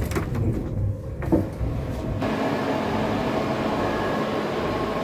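A few scattered clicks and knocks, then, about two seconds in, a steady whirring hum with faint constant whine tones sets in abruptly: the cooling fans of a network server rack.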